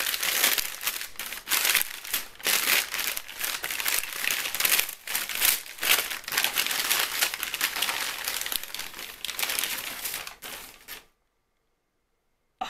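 Tissue paper crinkling and rustling as it is pulled and unwrapped by hand, a dense continuous crackle that cuts off suddenly about eleven seconds in.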